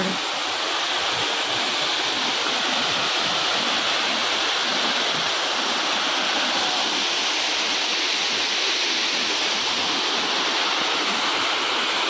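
Waterfall cascading down stepped rock ledges into a pool: a steady, unbroken rush of falling water.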